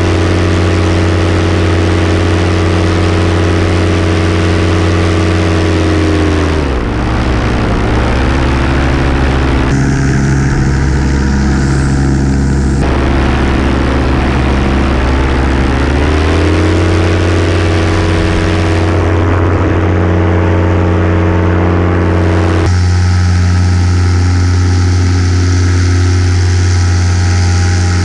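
Miniplane paramotor's Top 80 single-cylinder two-stroke engine and propeller running steadily in flight. About six seconds in, the pitch drops as the throttle is eased back, and it climbs back to cruising revs about ten seconds later.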